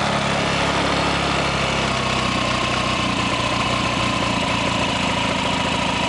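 Honda Ruckus 49cc four-stroke single-cylinder scooter engine idling, not yet warmed up, while its carburettor idle screw is adjusted. The idle speed sinks slightly from about two seconds in.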